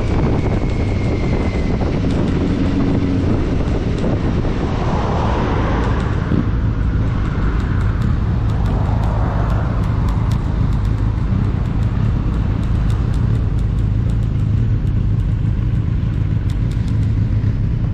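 Motorcycle engine running as the bike slows in town traffic, then turning over low and steady near idle. Wind noise on the microphone is heavier in the first few seconds and fades as the bike slows.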